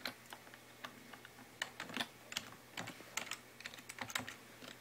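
Computer keyboard keys pressed one by one, sharp irregular clicks a few a second, as a password is keyed in at the PC's power-on password prompt.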